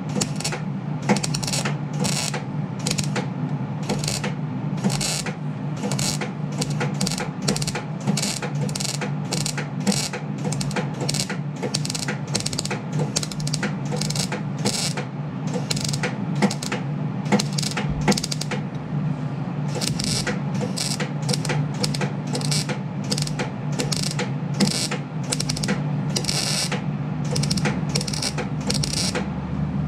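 MIG welding arc laying tack welds, one short burst after another, on the holed sheet-steel muffler of a Husqvarna 61 chainsaw. Each tack crackles briefly, a little over one a second with a short pause about two-thirds of the way through, over a steady low hum.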